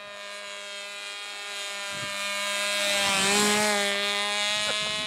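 Radio-controlled model airplane's motor and propeller whining in flight as it flies past: louder toward a peak about three and a half seconds in, with the pitch dipping as it passes, then fading a little.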